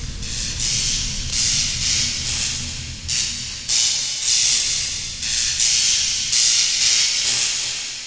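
Title-sequence soundtrack: repeated surges of hiss, about every three-quarters of a second, over a steady low hum.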